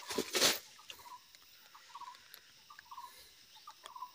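A brief rustle of dry leaf litter and twigs underfoot about half a second in, then a run of short, evenly pitched chirps from a small animal in the undergrowth, roughly two a second.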